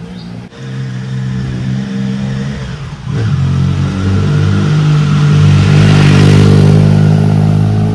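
A motor vehicle's engine running close by on the road, a steady low drone that gets louder about three seconds in and is loudest near the end as the vehicle passes.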